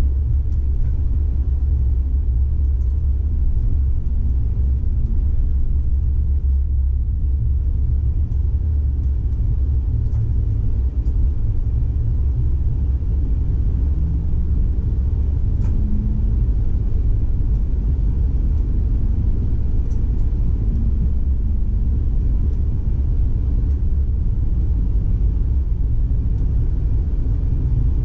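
PESA Twist II tram running, heard from inside the driver's cab: a steady low rumble of the running gear and motors, with a faint hum over it and an occasional faint tick.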